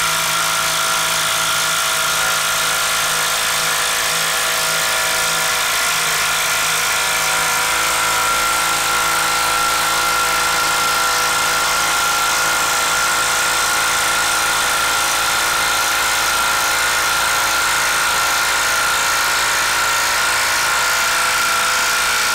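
Hilti SID 2-A 12-volt brushed impact driver hammering without a break as it drives a long wood screw into a pressure-treated 6x6, labouring under heavy load. It makes a loud, steady rattle with a high ringing tone that holds the same throughout.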